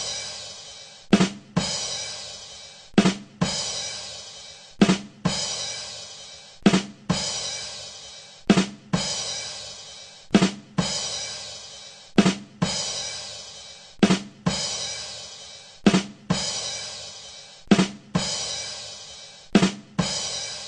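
The 'ba dum tss' rimshot sting on a drum kit, looped over and over: two quick drum strikes followed by a cymbal that rings and fades, repeating about every two seconds.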